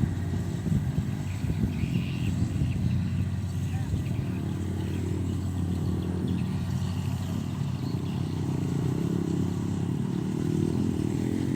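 Engine of a rice-harvesting machine running steadily, a continuous low mechanical hum.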